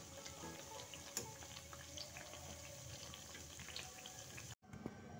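Methi mathri (fried dough discs) deep-frying in medium-hot oil in a wok, a faint steady sizzle with fine crackles. They have puffed up and floated to the surface and are frying on toward brown. The sound cuts out for an instant near the end.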